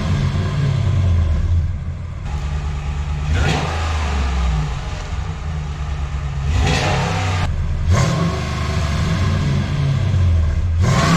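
A Ram 1500's 5.7 L Hemi V8 accelerating past, its exhaust running through stainless long-tube headers with no catalytic converters into the stock muffler and resonators. The deep engine note rises and falls, with several abrupt breaks along the way.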